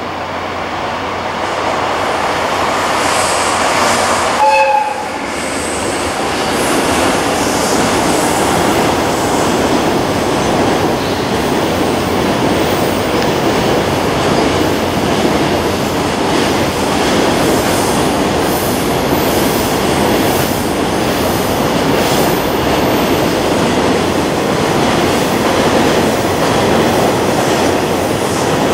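Electric-hauled container freight train passing close by. The locomotive gives a short horn blast about four and a half seconds in, then the container wagons roll past in a steady loud rumble with wheel clatter.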